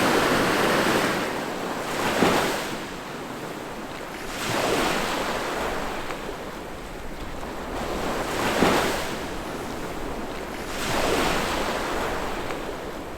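Small sea waves breaking and washing up a beach, in swells a few seconds apart.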